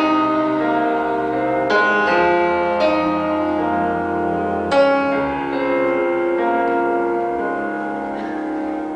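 Closing bars of a recorded song: piano chords struck a few times and left to ring over held tones, the music slowly fading.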